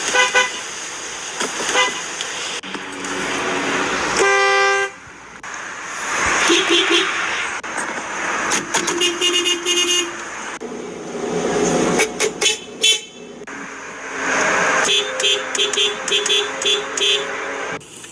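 Car horns sounding in a series of separate clips: a strong single blast about four seconds in, shorter toots in the middle, and a quick run of short repeated beeps near the end, over outdoor background noise.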